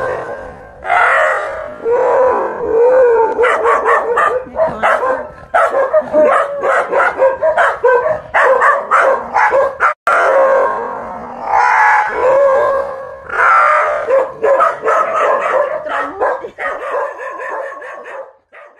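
Dogs barking in quick runs, mixed with longer wavering cries, with a brief dropout about ten seconds in.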